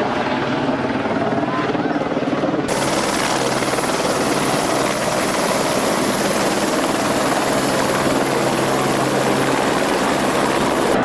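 Firefighting helicopter running steadily overhead, its rotor and turbine giving a dense, continuous noise. About three seconds in, the sound abruptly turns brighter and hissier, with a faint high whine.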